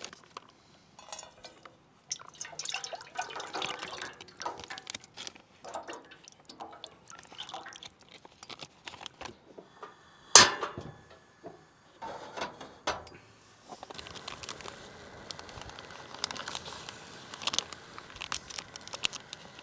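Camp cooking of packaged noodles: rustling, clicks, and liquid dripping and pouring, with one loud sharp knock about ten seconds in. From about fourteen seconds on comes a steady hiss with light crackling, as the pot heats up.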